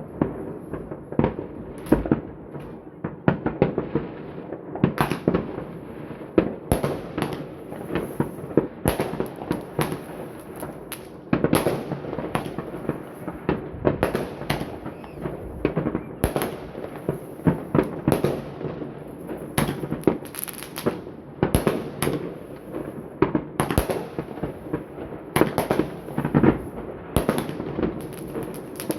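New Year's fireworks going off all around: a dense, irregular volley of bangs and sharp cracks from many rockets and salutes, several a second, with no let-up.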